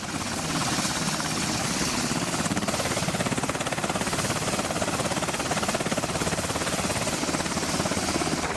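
Helicopter noise heard from on board or close by: the rotor blades chopping in a fast, steady, even rhythm over the engine's continuous noise.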